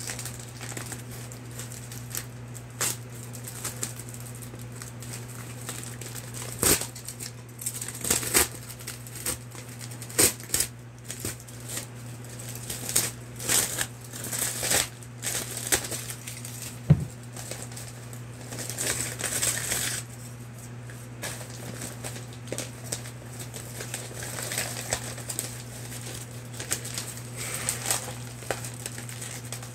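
Packages being handled and opened by hand: scattered rustling and crinkling of packaging with sharp clicks and taps, over a steady low hum.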